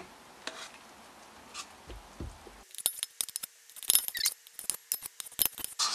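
A utensil scraping and clinking against a stainless steel mixing bowl and metal loaf pan as thick batter is scraped out. A few faint knocks at first, then from about halfway a quick run of sharp clicks and scrapes with a light metallic ring.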